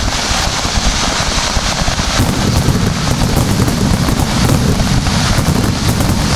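Aerial fireworks in a rapid barrage (star mine): many overlapping shell bursts and booms merging into a continuous rumble, with dense crackling that thickens from about two seconds in.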